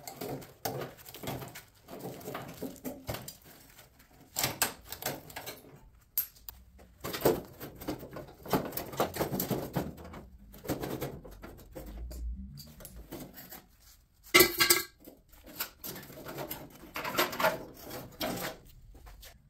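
Metal parts being handled and moved about: irregular clunks, knocks and scraping rustles, with one sharp ringing metal clink about fourteen seconds in.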